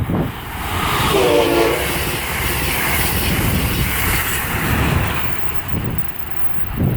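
A train passing close by, its wheels running on the rails in a loud, steady rush. A short horn blast sounds about a second in.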